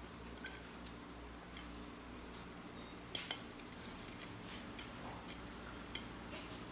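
A metal fork scraping and clinking against a plate while twirling spaghetti: a few scattered light clicks, the loudest pair about three seconds in.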